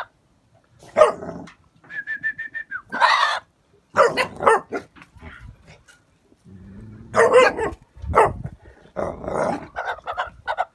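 Gaddi dog puppies barking and growling in play, in short separate bursts, with a quick run of high yips about two seconds in.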